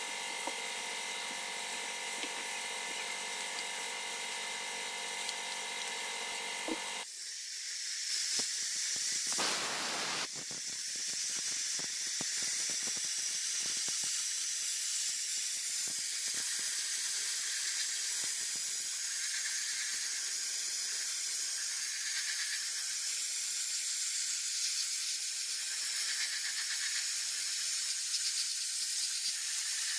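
A steady mechanical hum with several held tones, which cuts off about seven seconds in. It gives way to the steady loud hiss of a sandblasting gun's air-and-grit jet stripping the Honda MB50 50cc engine's crankcase, with a brief fuller blast shortly after it starts.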